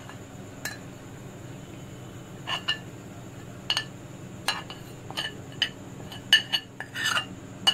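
Metal spoon clinking and scraping against a ceramic plate and glass bowl as spices are pushed off the plate, a dozen or so irregular sharp clinks, the loudest about six and a half seconds in.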